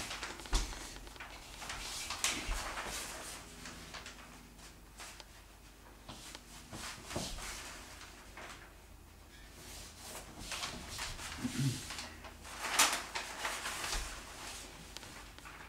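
Paper skirting-masking strip rustling and crackling as it is handled and pressed down along a skirting board, in uneven bursts with the sharpest crackle near the end, plus a few soft thumps.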